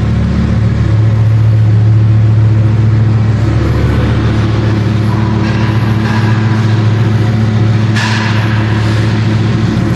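An Audi's engine droning steadily with road noise, heard from inside the cabin while driving. About eight seconds in there is a brief rush of hissing noise.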